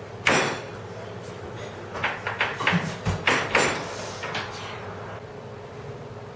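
A series of sharp knocks and clatters: one loud knock just after the start, then about a dozen quicker clicks and knocks in an irregular cluster in the middle.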